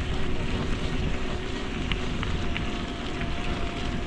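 Electric mountain bike being ridden along a trail: a continuous rumble of tyres over the ground and wind on the microphone, with a faint steady whine from the mid-drive motor and a few sharp rattling ticks about two seconds in.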